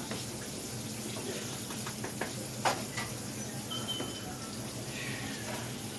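Steady hiss of food cooking in pans on the stovetop, with a few light clacks of utensils or cookware, the sharpest about two and a half seconds in.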